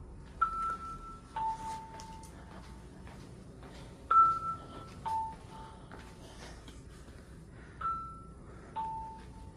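A hospital's birth-announcement chime, the two-note signal played when a baby is born: a higher tone falling to a lower one, ding-dong, sounding three times about every three and a half seconds.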